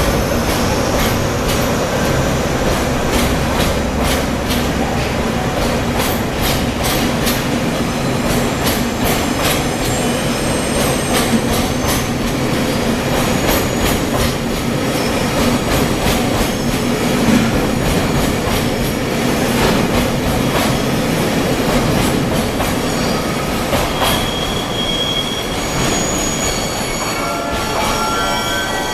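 Freight train wagons rolling slowly over the rails, wheels clicking over rail joints, with a low engine hum in the first few seconds. High-pitched wheel squeal sets in near the end.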